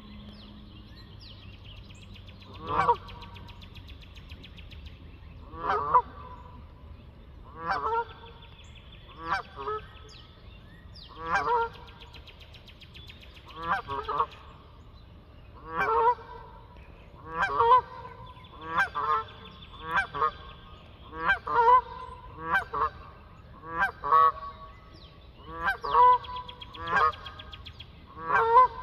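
Geese honking over and over, a loud call every second or two, the honks coming faster and closer together in the second half.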